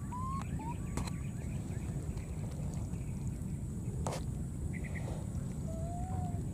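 Baby macaques giving thin, high coo calls: two short ones at the start and a longer one that rises and falls near the end. A steady low rumble runs underneath, with a couple of sharp clicks.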